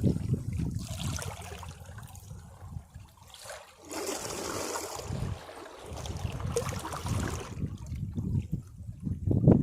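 Sea waves breaking against rocks and washing back: a wash of water at the start that ebbs away, then another wave surging in near the end.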